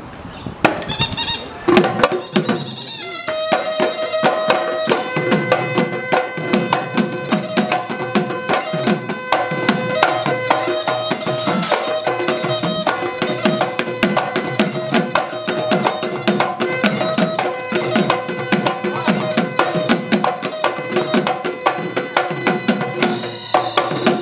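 Bihu folk music: a dhol, the Assamese two-headed barrel drum, beaten in a fast, dense rhythm, with a pepa, a buffalo-horn pipe, playing a shrill held melody over it. The pipe comes in about two to three seconds in.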